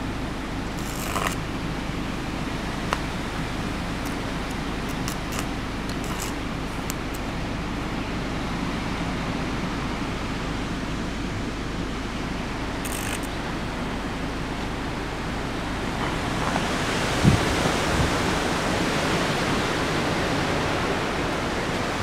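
Strong wind blowing, a steady rushing noise with a few faint clicks in the first half. It grows louder about three-quarters of the way through, with brief low thumps of wind hitting the microphone.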